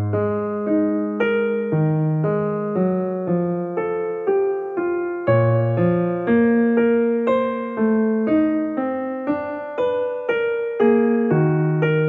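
Background piano music: a gentle run of single struck notes, about two a second.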